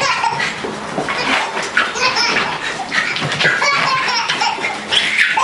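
Laughter and giggling, in many short high-pitched peals that rise and fall.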